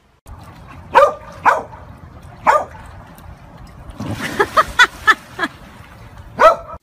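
Large dog barking in short, loud single barks, several times, with a quick run of barks near the middle. A splash of water comes about four seconds in as a dog jumps into a swimming pool.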